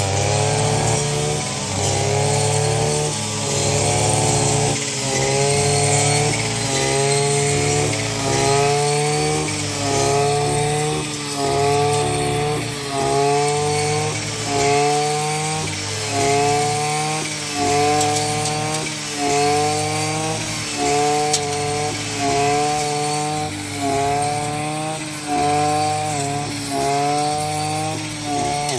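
Small engine of a harvesting machine running, its pitch rising and dropping back about once a second as the load comes and goes.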